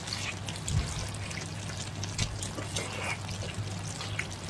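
Close-up wet chewing and slurping of sauced shellfish, with many small smacking clicks, over a low steady hum.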